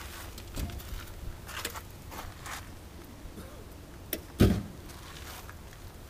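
Footsteps and camera handling noise as the camera is carried around a parked car, with one dull thump about four and a half seconds in.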